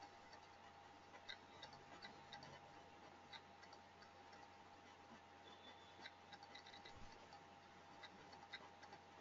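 Near silence: room tone with a steady faint electrical hum and scattered faint clicks at irregular intervals.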